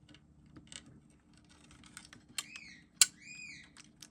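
Small scattered clicks and taps from handling the opened cassette player's plastic case and mechanism, with one sharp click about three seconds in. Around the same time a pet bird gives a few short, arching chirps. A low steady hum runs underneath.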